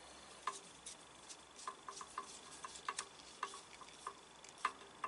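Faint, irregular small clicks and taps, about fifteen of them, from hand work on cable connections at an inverter's terminals.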